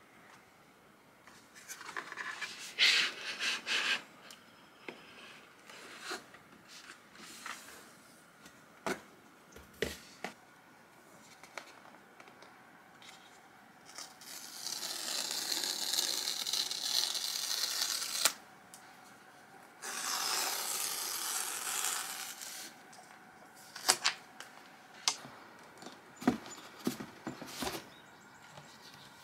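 Unboxing an Apple MacBook Pro box: hands rub and tap on cardboard and the paper box. Around the middle come two long tearing rips as the paper seal strips are pulled off the back of the box, and near the end there are several sharp knocks as the box is handled.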